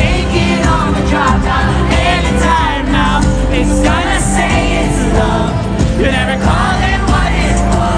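Live pop song: a woman singing lead over guitar and band, with no break.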